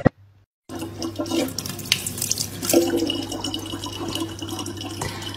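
A faucet running a thin, steady stream of water into a bottle, starting about a second in after a brief silence, with a low steady hum underneath.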